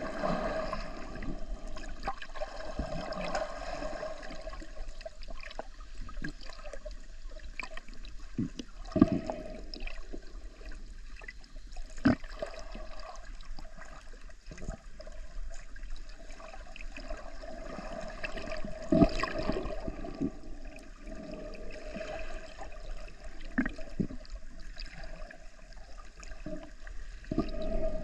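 Muffled underwater water noise, sloshing and bubbling, over a steady hum, with a few sharp knocks.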